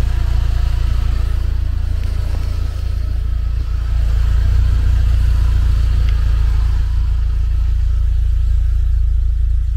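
UAZ off-road vehicle driving, its engine running with a steady low rumble and road noise, heard from inside the cab. The engine eases briefly about three seconds in, then pulls again.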